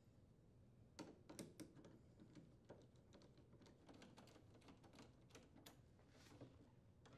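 Faint, irregular light metal clicks and ticks as a nut driver turns and seats a bolt holding a refrigerator's front roller assembly to its steel bracket.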